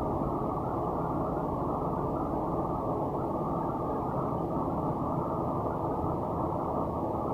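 A steady, even low rumble of background noise with no distinct events.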